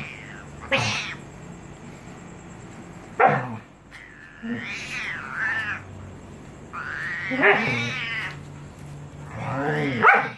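A domestic cat yowling at dogs nosing at it: about five drawn-out, wavering caterwauls, the longest about a second and a half near the middle. These are defensive warning calls.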